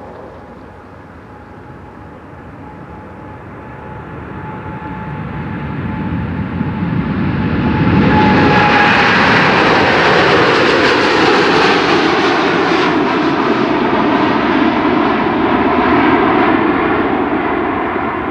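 Boeing 787-9 Dreamliner's twin jet engines at takeoff power. The sound grows louder as the airliner rolls and lifts off, is loudest from about eight seconds in, and carries a falling tone as it passes. It eases off near the end as the plane climbs away.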